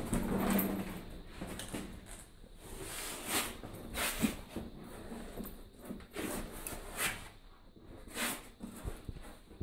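Footsteps and scuffs on concrete stairs in a narrow corrugated-iron-lined tunnel, irregular steps about every half second to a second, with rustling of clothes.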